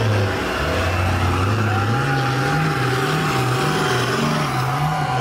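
Big mega-truck engines straining at full throttle against each other in a truck tug-of-war. The engine note holds low at first, then, about two seconds in, starts rising and falling in pitch roughly every half second as the trucks heave against the load.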